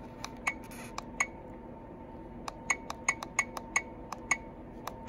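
Camcorder's menu button pressed over and over, a sharp tick on each press as the mode selection steps along: four ticks in the first second or so, a pause, then a quicker run of about ten.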